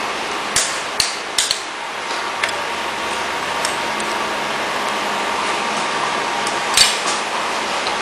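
Metal tool clinks and knocks against the punching press as its clamping bolts are tightened: a few sharp clicks in the first few seconds and a louder knock near the end, over a steady faint hum.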